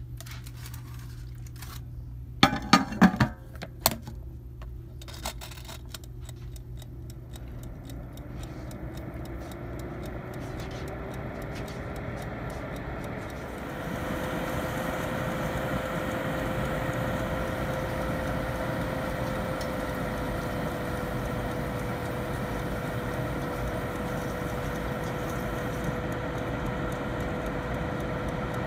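A few sharp clicks and clatter, like a lid or controls being handled, then a countertop convection oven's fan motor spinning up with a slowly rising hum. About 14 s in it settles into a steady, louder whir with rushing air as the oven runs and heats.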